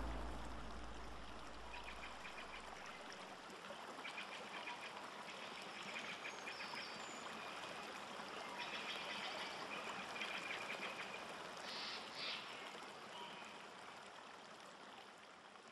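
Flooded rice-paddy ambience: a steady watery hiss with bouts of rapid, repeated animal calls, and a low rumble that fades out in the first few seconds.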